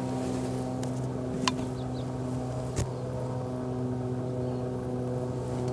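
A steady low machine hum of several even tones, with two sharp clicks about a second and a half and about three seconds in.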